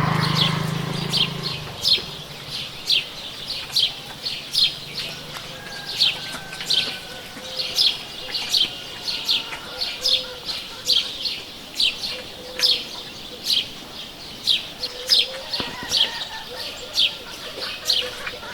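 A bird chirping over and over, short sharp down-slurred notes about two a second, with fainter calls of other birds behind it. A low hum at the start fades out within the first two seconds.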